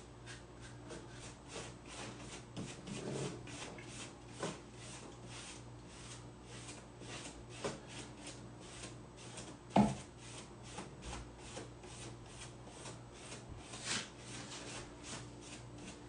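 A brush rubbing steadily over decoupage tissue paper on a tabletop, about three short strokes a second, as sealer is worked over the paper. A few light knocks break in, the loudest one about ten seconds in.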